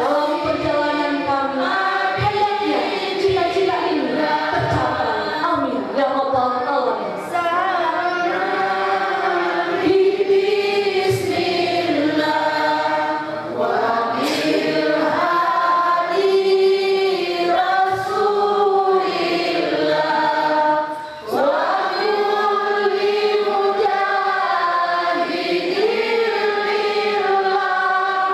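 A large congregation singing an Islamic devotional song (shalawat) together in unison, in long, drawn-out sung phrases.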